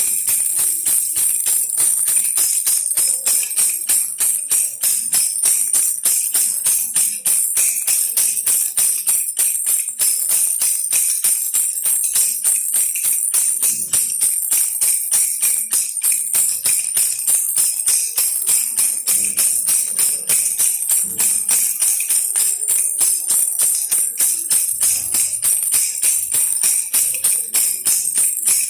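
Baby rattle shaken without pause, a fast, steady jingling with a bright ring.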